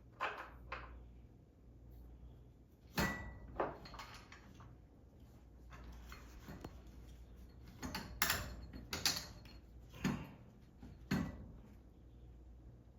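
Irregular metal clanks and clinks of tools and garage-door spring hardware being handled, about eight sharp knocks spread out, one about three seconds in ringing briefly.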